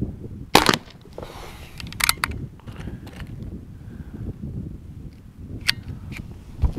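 Crosman 2240XL CO2 pellet pistol firing once with a sharp crack about half a second in. Metallic clicks follow as the single-shot bolt is worked to reload. Wind rumbles on the microphone throughout.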